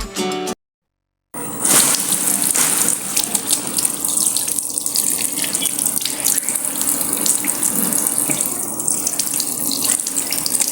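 Kitchen tap running steadily into a sink while small cajuí fruits are rinsed under it by hand, with light knocks of fruit and hands in the water. A moment of music cuts off at the start, before the water begins.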